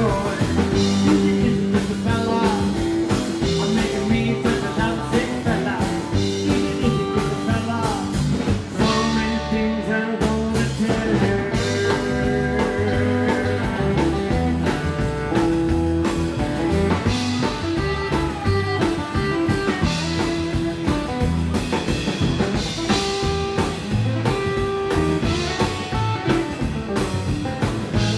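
Rockabilly band playing live: electric guitar, acoustic guitar, upright double bass and drum kit over a steady beat.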